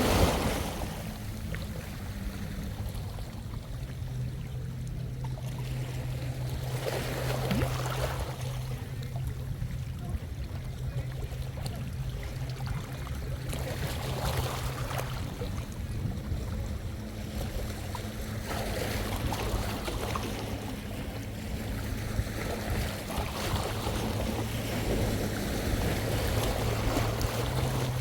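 Small sea waves washing onto the shore, swelling about every six or seven seconds, over a steady low drone.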